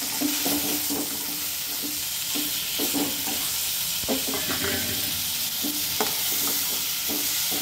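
Chopped tomatoes, onions and herbs sizzling in hot oil in a pan, with a steady hiss, while a steel spoon stirs them, scraping against the pan in short irregular strokes.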